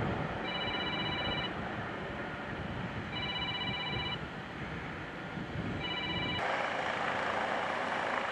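An electronic alarm tone sounds three times, each about a second long and roughly 2.7 seconds apart, over a low rumbling background. About six seconds in, the sound cuts to the steady rushing noise of a rescue helicopter.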